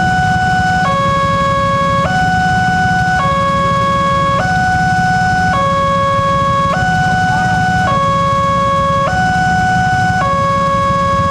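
Railway level-crossing alarm sounding: an electronic two-tone signal that alternates between a higher and a lower note, each held a little over a second, repeating without a break. A steady low engine rumble of waiting motorbikes runs underneath.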